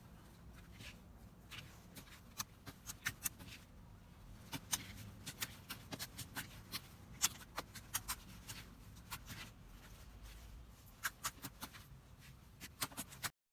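Slime being pressed and worked by hand, giving irregular crisp clicks and pops, several a second, as trapped air bubbles burst. It cuts off abruptly near the end.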